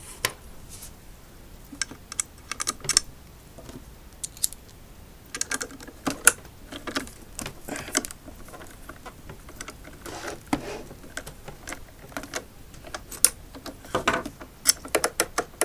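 Irregular clicks, taps and knocks of hands and tools working on the parts of an Inmotion V5F electric unicycle during disassembly, a few of them sharp and loud.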